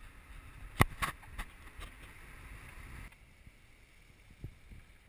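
Handling noise on a small action camera: one loud sharp click about a second in, then a few smaller clicks and knocks, over a faint hiss. A soft low thump comes near the end.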